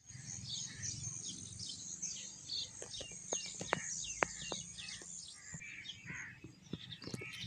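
Small songbirds chirping in many quick, short, downward-sliding notes, overlapping densely, with sharp ticking clicks among them from about halfway.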